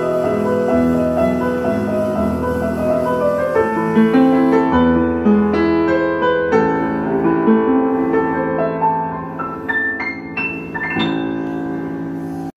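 Roland RP-107 digital piano played with both hands, bass notes under a flowing melody, a few high notes near the end, closing on a held chord that cuts off sharply.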